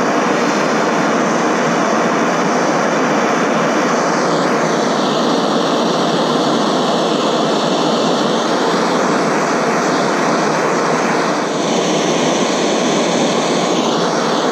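Butane-propane plumber's blowtorch burning with a steady loud rushing hiss as it heats an aluminium joint to melt the brazing rod. The tone of the flame shifts slightly about four seconds in and again near the end.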